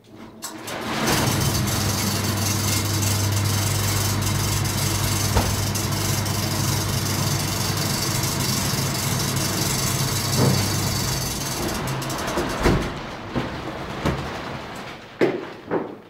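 Electric fan of a scrap-built hovercraft switching on and running with a steady hum and rushing air as it inflates the tarp skirt and lifts the platform, then switched off about twelve seconds in and running down. A few knocks near the end as the platform settles back on the floor.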